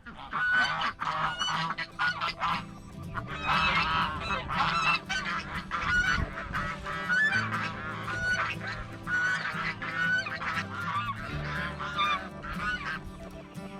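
A flock of domestic waterfowl honking and calling, many short calls overlapping, busiest a few seconds in and again near the middle.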